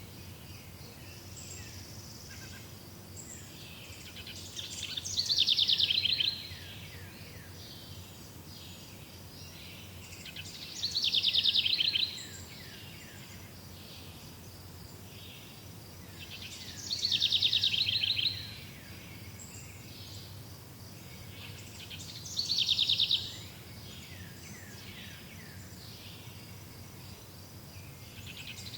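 A songbird singing a short, rapid trill of quick descending notes, repeated four times about every six seconds, over faint steady background chirping.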